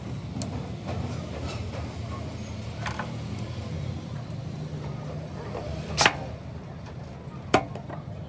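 A steady low mechanical drone with a few sharp metallic clicks over it, the loudest about six seconds in and another about a second and a half later.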